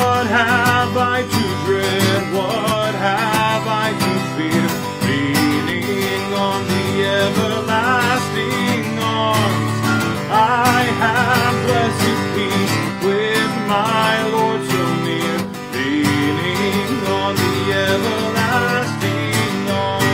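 A man singing a hymn to his own strummed acoustic guitar, the voice carrying a melody throughout with a short break about three quarters of the way in.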